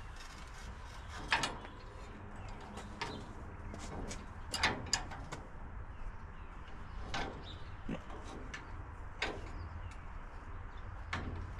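Light metallic clicks and clinks of a hand wrench working the bolts on a vintage Ford's front axle and spring, coming irregularly every second or two, over a low steady rumble.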